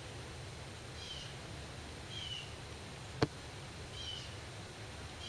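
A bird giving short, high chirps, each falling slightly, repeated about once a second. A single sharp click about three seconds in is the loudest sound.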